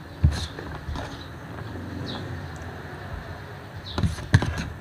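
Spoon and fork clicking and scraping against an aluminium foil food tray while food is scooped up, with chewing. There are sharp clicks just after the start and a cluster of them about four seconds in.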